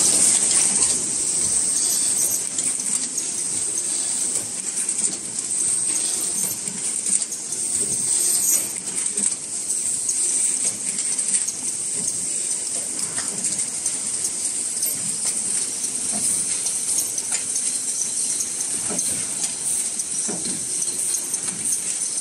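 Automatic three-piece gallon can body production line running: a steady high hiss with an irregular clatter of clicks and metallic knocks from the tooling and conveyors moving tinplate can bodies.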